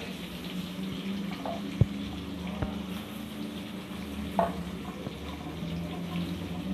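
Stuffed bitter gourds sizzling steadily in a little hot oil in a kadhai, just laid in to shallow-cook. There is a sharp utensil click about two seconds in, another soon after, and a few lighter taps, over a steady low hum.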